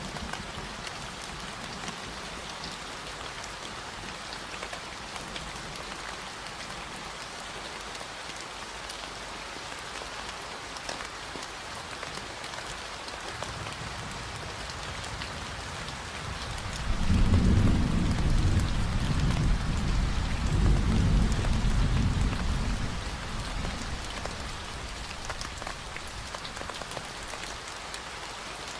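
Steady rain falling, with a low roll of thunder that builds about halfway through, rumbles loudest for several seconds, then fades back under the rain.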